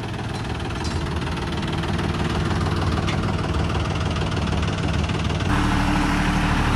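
Tractor engine idling steadily. A little over five seconds in, the sound changes abruptly to a louder, closer tractor engine running.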